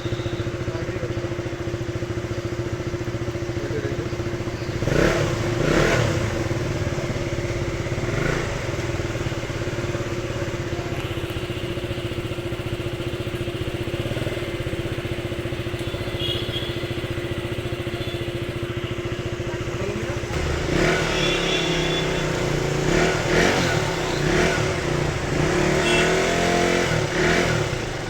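Motorcycle engine running steadily just after being got started on a discharged battery, with a few louder swells of revving along the way.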